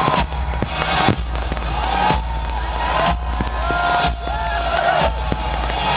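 Fireworks going off amid crowd noise, with music playing and sharp strokes about once a second.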